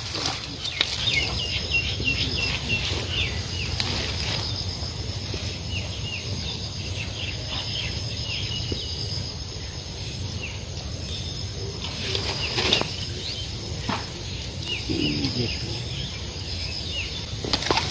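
Small birds chirping over and over in quick clusters above a steady low rumble, with a few brief rustles as a nylon cast net is handled in the grass.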